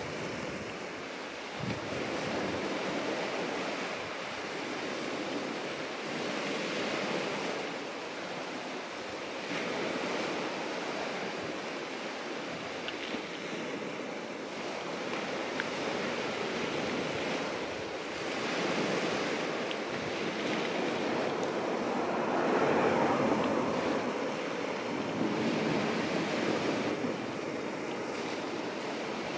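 Sea surf washing onto a beach, swelling and falling away every few seconds, loudest a little past the middle.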